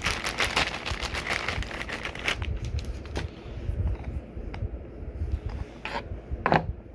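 Plastic packaging bags crinkling and rustling as toy parts are handled and unwrapped. The crinkling is dense for the first few seconds, then thins out to scattered plastic clicks, with a couple of louder handling sounds near the end.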